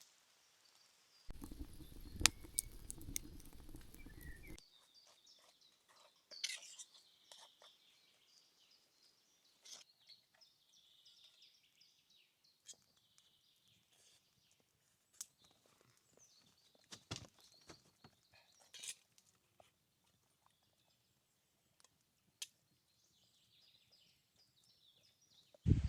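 Faint forest ambience with bird chirps and scattered small clicks and rustles. A stretch of low rumbling noise with sharp clicks comes about a second in and lasts roughly three seconds.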